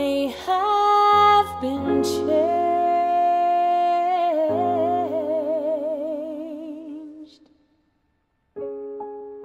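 A woman's voice holds a long sung note with vibrato over sustained keyboard chords, fading out about seven seconds in. After a brief silence, soft piano chords start again near the end.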